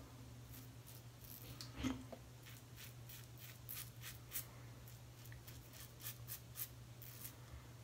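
Double-edge safety razor with a Gillette 7 O'Clock Sharp Edge blade scraping through lathered stubble on the chin and jaw: a faint series of short, scratchy strokes. There is one louder bump about two seconds in.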